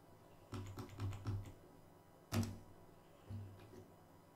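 Computer keyboard typing: a quick run of several keystrokes about half a second in, one louder key strike a little past the middle, and a few softer keystrokes near the end.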